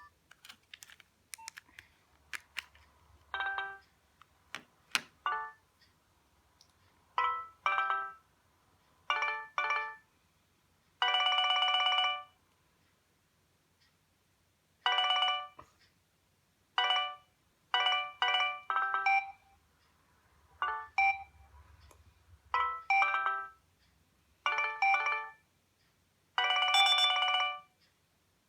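A Nokia 2610 mobile phone playing short ringtone or alert-tone snippets through its small speaker: about fifteen brief pitched chimes of several notes, each half a second to a second long, with silent gaps between; the longest comes about eleven seconds in. A few sharp clicks come in the first seconds.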